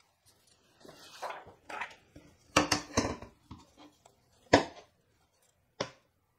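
Plastic sheets and the frosted acrylic light guide plate from a disassembled LCD monitor being handled and set down on a wooden workbench. Light rustling, then several short taps and knocks: the loudest a bit past halfway, one more near the end.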